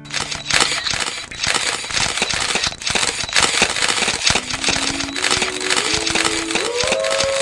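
Dense barrage of rapid clicks over a hiss. About four seconds in, a tone joins that rises in a few steps and then holds.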